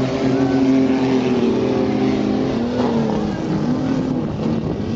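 Several off-road race trucks' engines revving on a dirt track, their pitch rising and falling as they drive around the course.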